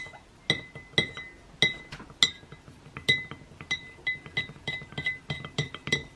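A stirring stick clinking again and again against the inside of a drinking glass of oil. Each clink rings briefly at the same pitch, and the clinks come faster in the second half.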